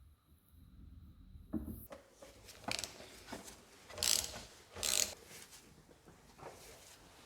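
Ratchet wrench clicking in several short bursts between about two and five seconds in, with fainter clicks after, as bolts are worked on the motorcycle's front forks.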